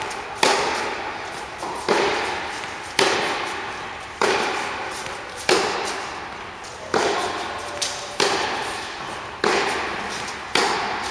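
Tennis rackets striking the ball in a steady baseline rally on an indoor court: about nine sharp hits, roughly one every 1.3 seconds. Each hit rings out in the reverberation of the hall.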